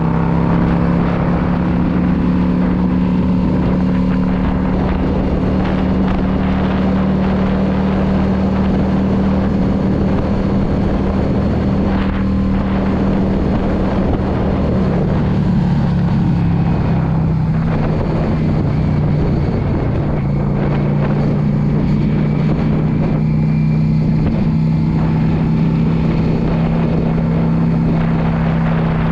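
Yamaha V Star 650's air-cooled V-twin engine running steadily at cruising speed, with wind and road rush. The engine note drops a little about halfway through.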